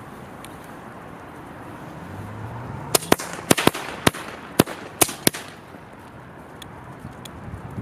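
Funke Knallfrosch B jumping-jack firecracker going off: a brief fizz, then about eight sharp bangs in quick, irregular succession over some two seconds, starting about three seconds in.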